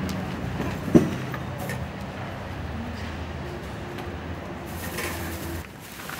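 Low, sustained background music in the manner of a film score, its held notes shifting a couple of times, with one sharp thump about a second in.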